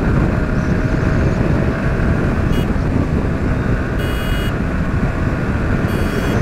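A motorcycle running steadily at road speed, its engine and tyre noise mixed with wind rumble on the helmet-mounted action camera's microphone. A few short high-pitched tones sound about two and a half seconds in, around the middle, and near the end.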